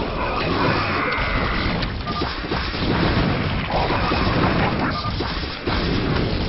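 Video game battle sounds from a real-time strategy game: a dense, continuous clatter of explosions and weapon impacts, with a short high beep about two seconds in and again about five seconds in.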